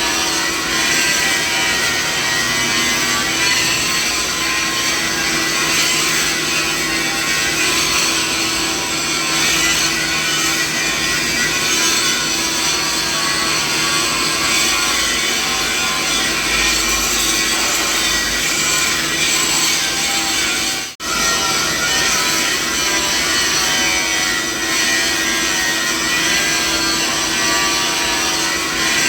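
Steady mixed machinery noise: a dense hiss with several held hums and whining tones layered from low to high pitch, unchanging throughout. It drops out for a split second about 21 seconds in, then resumes.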